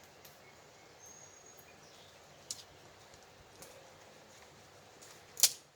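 Campfire crackling: a few sharp pops over a low steady background, the loudest one near the end.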